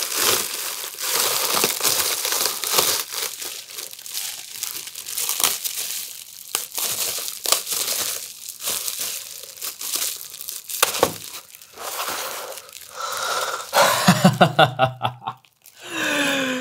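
Plastic bubble wrap crinkling as a sheet is pulled up out of a tissue-style dispenser box and handled, with many sharp crackles. A short burst of voice near the end.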